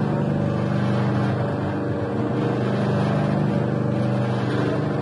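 Dough mixer machine running with a steady motor hum.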